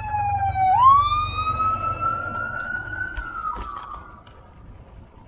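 Emergency vehicle siren wailing. Its pitch glides down, then swoops back up a little under a second in and climbs slowly. It falls away and fades out about four seconds in.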